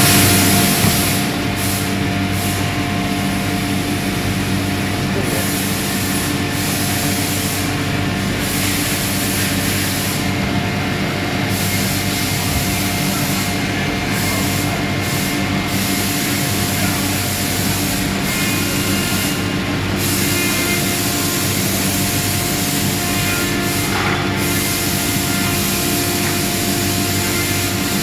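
Steady machine hum: several constant tones over an even hiss.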